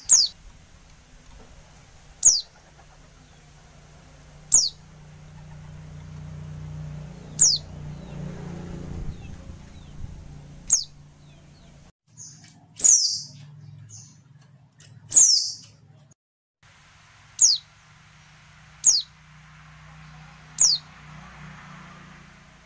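Female white-eye (pleci) giving short, high call notes that slide sharply downward, one every two seconds or so, with two longer, louder calls in the middle. A low hum runs underneath, and the sound briefly cuts out twice.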